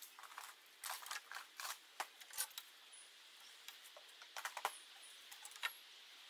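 Faint, irregular taps, clicks and short scratches as a carpenter's pencil, a folding rule and a steel square are handled and laid against a planed timber beam while it is marked out.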